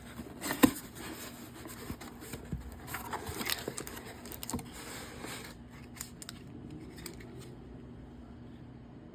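Packaging being opened by hand: a sharp snap about half a second in, then scratching and scraping from about three to five and a half seconds in, and a few light clicks before it settles.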